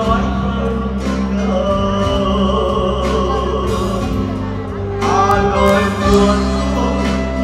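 Live band music: a man singing a slow Vietnamese ballad into a microphone, backed by saxophone and acoustic guitar, with long held notes and a new phrase swelling in about five seconds in.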